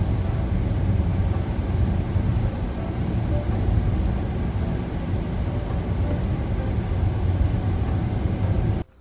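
Steady low rumble of a car driving on an open road, tyre and engine noise, with faint ticks about once a second. It cuts off suddenly near the end.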